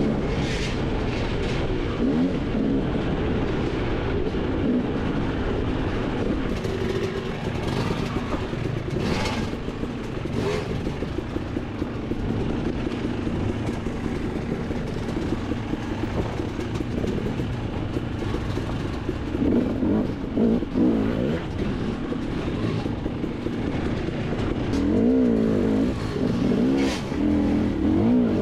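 Dirt bike engine running through a trail ride, its pitch rising and falling as the throttle is worked, with a few sharp knocks.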